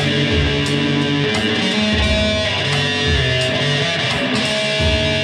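Electric guitar played through an amplifier, a melodic line of held notes.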